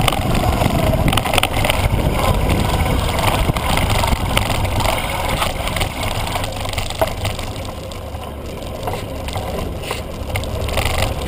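Mountain bike rolling over a loose gravel and dirt track, with wind rushing over the microphone, tyres crunching on stones and the bike rattling in frequent clicks and knocks. The noise eases somewhat about six seconds in as the bike slows.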